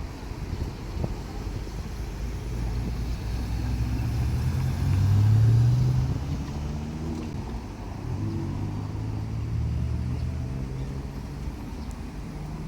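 Diesel railcar engine running at low speed, its low hum swelling to its loudest about five seconds in, easing, then rising again from about eight seconds.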